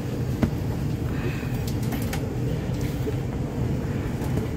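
MTR Kwun Tong Line C-Train running between stations, a steady low rumble inside the carriage. There is a sharp click about half a second in, and a few fainter ticks about two seconds in.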